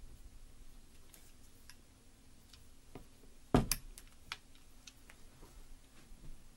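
Flintlock pistol's lock being worked empty: a few light clicks, then a single sharp snap about three and a half seconds in as the trigger releases the cock onto the frizzen, followed by a few lighter clicks and knocks of handling.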